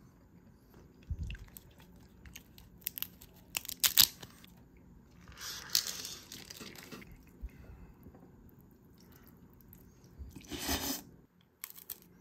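Food being bitten and chewed, with a few sharp crackles and two longer crunching stretches.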